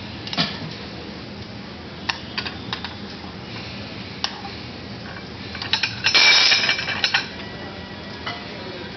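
Metal tongs clinking and scraping against a sauté pan as fettuccine is tossed in its sauce. Scattered single clinks, then a denser clatter of scraping and clinks about six to seven seconds in.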